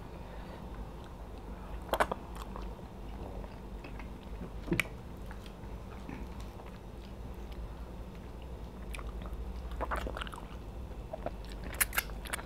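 Quiet chewing and mouth sounds of people eating pounded yam and meat by hand, with a few sharp smacks spaced several seconds apart over a low steady hum.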